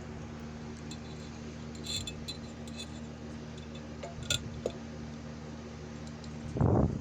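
Hands working the alarm's wires and electrical tape: a few light clicks and small clinks, then a short louder rustle near the end, over a steady low hum.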